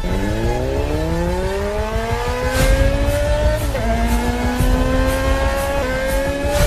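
Motorcycle engine accelerating hard, its pitch climbing steadily and dropping briefly at two gear changes, one about four seconds in and another near six seconds.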